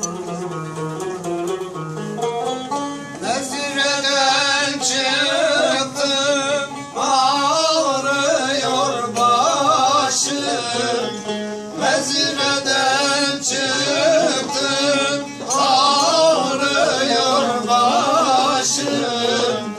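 A man sings a Turkish folk song with a wavering, ornamented voice, accompanied by a plucked bağlama (saz). The bağlama plays alone at first, and the voice comes in about three seconds in.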